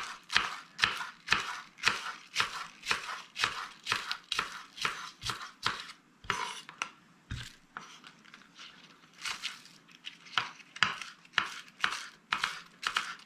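Chef's knife slicing green onions on a wooden cutting board: steady chops about two a second, thinning out for a few seconds in the middle, then picking up again.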